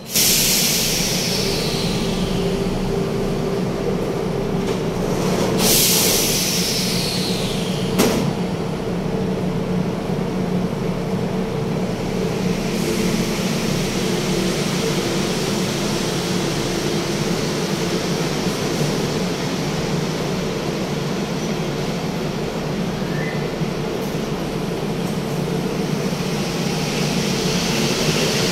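Mexico City Metro rubber-tyred train standing at a station: a steady hum from its motors and equipment, with two hisses in the first seven seconds and a sharp knock about eight seconds in.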